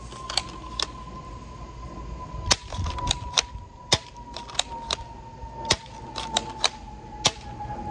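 Sharp, irregular clicks and snaps from a Bug-A-Salt Black Fly 3.0 salt gun being handled and fired, about a dozen of them, with the loudest coming about 2.5, 4, 5.5 and 7 seconds in. A steady high tone that slowly drops in pitch runs underneath.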